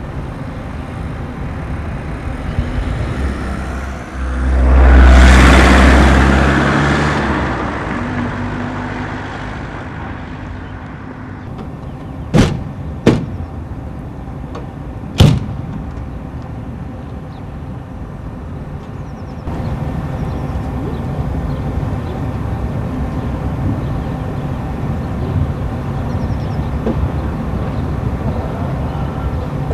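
Outdoor ambience with a vehicle passing close by: a low rumble swells about four seconds in and fades away over the next few seconds. A little later come three short, sharp knocks.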